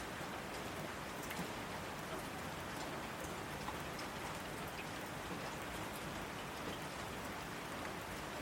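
Steady rain falling, with a dense hiss and many small drop ticks spread through it.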